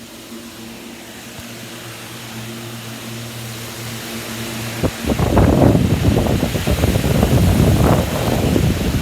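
A steady machine hum, gradually getting louder. About five seconds in, a loud, uneven rumbling noise suddenly takes over.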